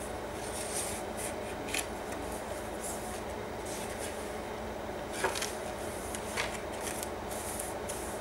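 Paper and cardstock rustling and rubbing as journal pages and tags are handled and turned, with a few sharper crisp rustles about 2, 5 and 6.5 seconds in, over a steady low hum.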